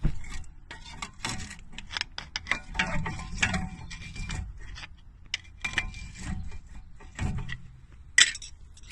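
Irregular metallic clicks and clatter of hand tools and brake parts being handled during front brake caliper work, with a sharp knock about eight seconds in.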